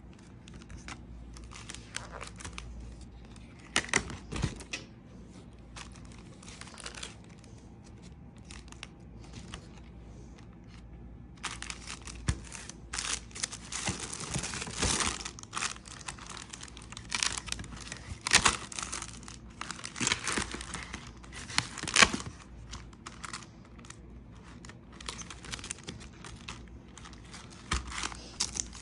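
Spiral-bound paper practice copybooks being handled and their pages turned: irregular rustling of paper with sharp clicks and taps, busier in the second half.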